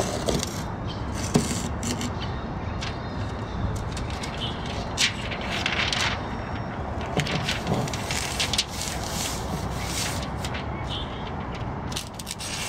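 Utility knife slicing through Tyvek house wrap, with the stiff sheet crackling and rustling in short strokes as the cut flap is lifted and trimmed, over steady background noise.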